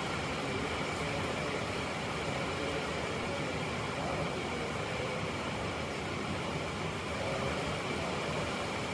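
Steady, even background noise with a faint constant high whine, unchanging throughout and with no distinct knocks or tool sounds.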